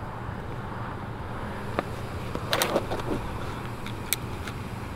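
Steady low hum of an idling vehicle engine, with a few sharp clicks and a short clatter about halfway through, from handling a portable butane camp stove and pressing its igniter button.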